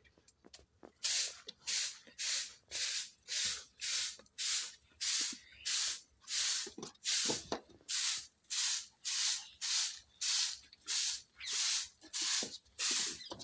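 A steady rhythm of short hissing swishes, a little under two a second, very even in timing and strength.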